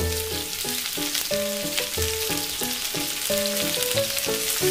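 Sliced onions frying in hot oil with cumin seeds in a frying pan: a steady crackling sizzle. Background music with a melody of short stepping notes plays over it.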